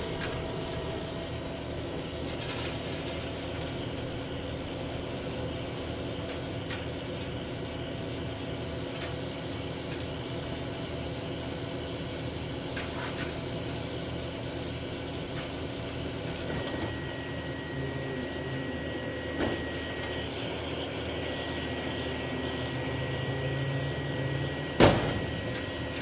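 Tractor and Vermeer Rancher round baler running steadily while baling hay, with a high steady whine joining about two-thirds of the way through. A single loud thump near the end as the finished bale is ejected.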